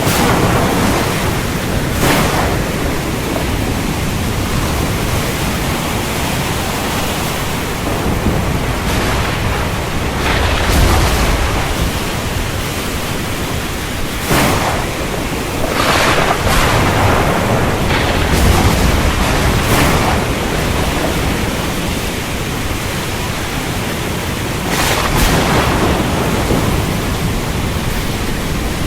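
Heavy rain and strong wind in a steady loud rush, with thunder cracking and rumbling several times.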